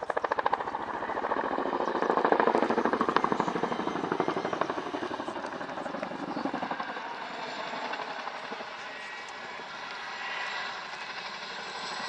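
RAF Chinook's tandem rotors beating overhead with a rapid, pulsing blade slap. Loudest two to three seconds in, easing off, then swelling again at the end.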